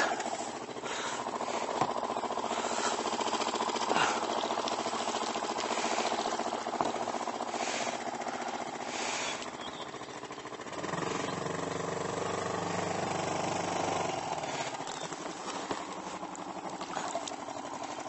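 Small boat motor running steadily with a fast, even pulse. A second, deeper hum joins about eleven seconds in and stops about three seconds later.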